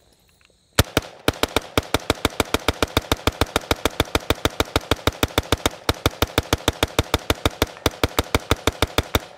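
Rapid gunfire from an H&K MR556A1 5.56 mm rifle: one shot about a second in, then a long, fast, even string of about seven shots a second with one brief break midway.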